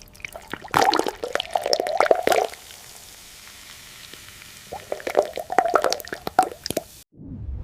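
Wet squishing and plopping in two bursts of quick crackly clicks, each about two seconds long, with a short quiet stretch between them; it cuts off suddenly near the end.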